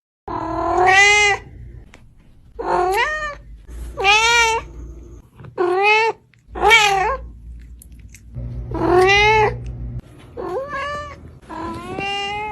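A domestic cat meowing over and over: about eight drawn-out meows, each rising then falling in pitch, one to two seconds apart.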